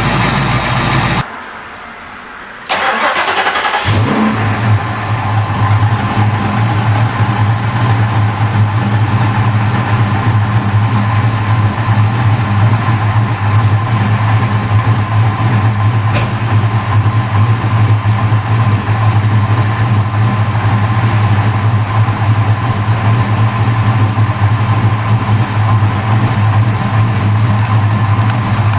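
Fox Body Mustang engine running at idle; about a second in the sound drops away briefly, then comes back with a start-up surge and settles into a steady idle with a strong low hum.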